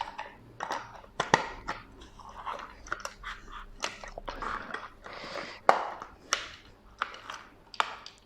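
Hard plastic parts of a Mattel Masters of the Universe Origins Stridor figure and its clear display-stand rod clicking, scraping and knocking together as they are worked into place by hand. There are sharp irregular clicks throughout, the loudest a little over a second in and near the middle.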